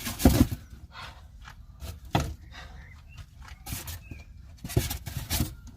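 Scattered clicks, knocks and rustles of parts being handled: a diesel heater's control panel and wiring being picked out and sorted.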